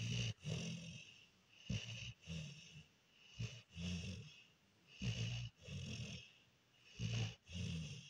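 Dog snoring in its sleep: a low, rasping snore with each breath, repeating evenly about every one and a half to two seconds.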